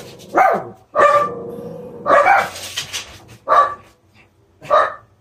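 Dogs barking in a run of about five barks, roughly a second apart, one of them drawn out longer than the rest.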